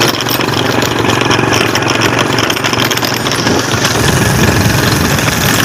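Engine of an open vehicle running steadily while riding along, with wind buffeting the microphone.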